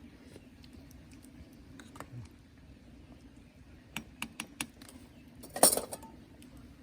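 Light taps and clinks of camp cookware being handled, a few sharp clicks, then a louder short clatter about five and a half seconds in.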